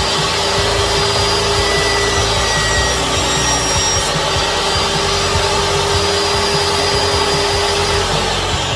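DeWalt DWE7492 jobsite table saw running and cutting through wood: a loud, steady sawing noise with a held tone that stops about eight seconds in.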